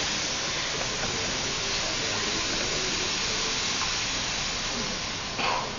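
Stage fog machine hissing steadily as it sprays, easing off slightly near the end. A short, louder burst of noise comes just before the end.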